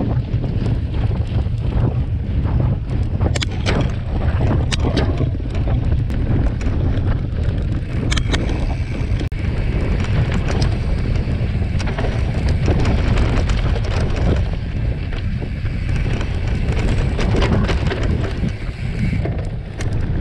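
Mountain bike ridden fast over a dirt trail, heard from an on-board camera: heavy wind rumble on the microphone, with scattered clicks and rattles from the bike over the rough ground.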